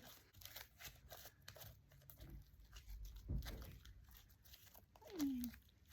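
Scoopi milk tea slime with black bead 'pearls' mixed in, stretched and squished by hand, giving a string of small sticky crackles and pops. A short falling vocal sound comes about five seconds in.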